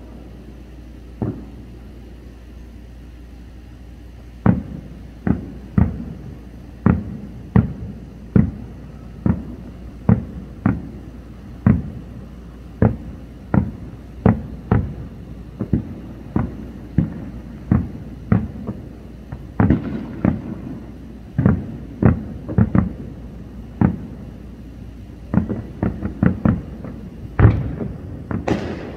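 Distant aerial fireworks shells bursting: a long, irregular string of booms, roughly one or two a second, after a short lull near the start. A quick cluster of sharper cracks comes near the end.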